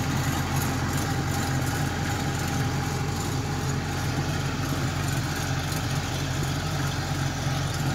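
Crawler rice combine harvester's diesel engine running steadily at an even pitch as the machine creeps forward on its tracks.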